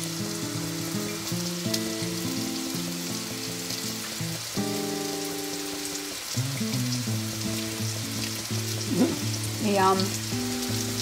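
Pumpkin cubes frying in ghee in a wok over a gas flame, a steady sizzle, under background music with held notes. Near the end come a couple of short vocal sounds that rise and fall.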